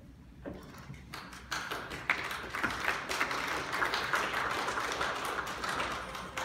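Audience applauding. It starts about a second and a half in and eases off a little near the end.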